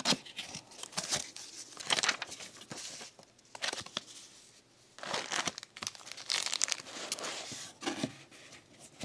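Hands opening a cardboard product box: cardboard sliding and scraping, and a plastic packet crinkling and rustling, in irregular bursts with a short lull about halfway.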